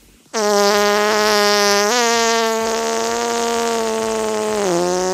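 A long, buzzing fart noise on one low pitch, starting about half a second in, stepping up slightly about two seconds in and dropping a little near the end.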